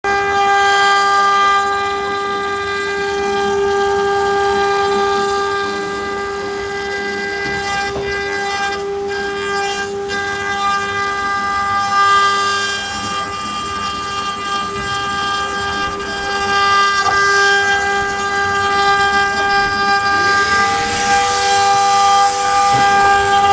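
CNC router spindle whining steadily at a fixed high speed while carving a wooden door, with the noise of the cutter in the wood beneath it. About twenty seconds in, a second whine rises in pitch and settles just above the first.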